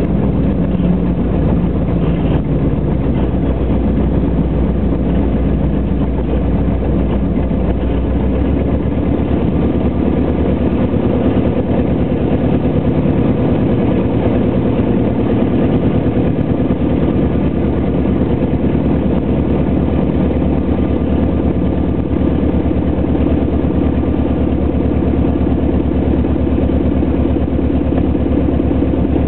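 Light biplane's engine and propeller running at low, idle-like power while the plane rolls along the runway after landing. The sound is steady and loud, and its deepest note drops away about eight seconds in.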